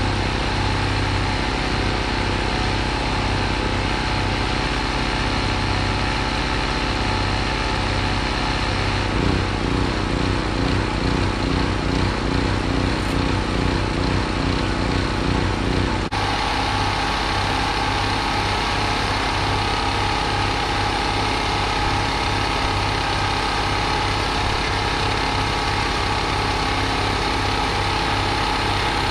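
An engine idling steadily with a regular low throb. Its rhythm changes about nine seconds in, and the sound shifts abruptly at about sixteen seconds.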